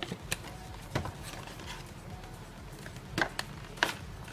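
Cardboard and plastic packaging being handled: the plastic blister tray of a boxed computer mouse slides and scrapes against its cardboard box in a series of sharp clicks and knocks. The loudest two come a little after three seconds, about half a second apart, over a low steady hum.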